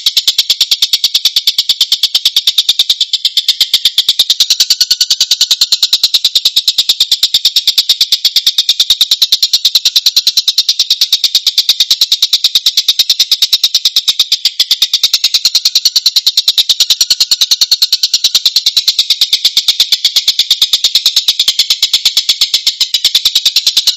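Tengkek (kingfisher) calling in a harsh, rapid, tightly packed chatter of high-pitched notes, repeated without a break: the 'tembakan kasar rapet' call.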